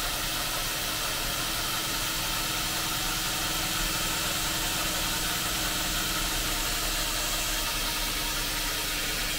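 Belt grinder running a fine 15-micron (about 1200-grit) abrasive belt while a knife blade held in a clamp jig is ground against it. The sound is a steady motor hum with an even hiss from the belt and the steel.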